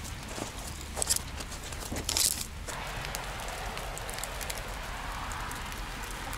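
Scattered crackles and taps of footsteps and raindrops on a wet, leaf-covered forest path. From about three seconds in, a steady light hiss of rain joins them.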